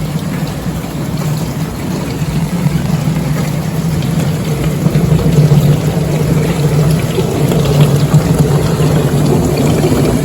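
Dishwasher running: a steady pump hum with water rushing and splashing inside, growing slowly louder.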